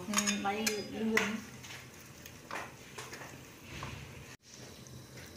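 A person's voice for about the first second and a half, then soft scattered knocks of a metal ladle against a steel pot of greens in simmering water.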